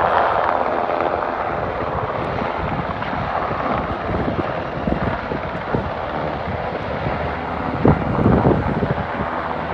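Helicopter running nearby, a steady rotor and engine rush, with wind buffeting the microphone in low gusts, strongest about eight seconds in.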